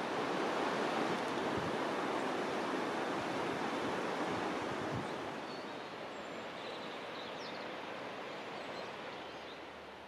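The raging River Avon rushing through its gorge: a steady roar of fast water, growing quieter from about halfway on.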